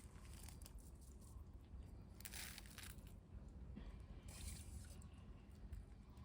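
Near silence: a faint low rumble with two brief, soft scrapes about two and four seconds in.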